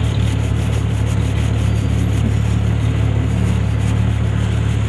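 Vehicle engine idling steadily, a constant low hum.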